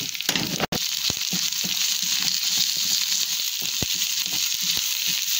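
Ginger-garlic paste and freshly added powdered spices sizzling in hot oil in a pan, fried to cook off the spices' rawness. A spoon stirs them, with scattered scrapes and knocks against the pan.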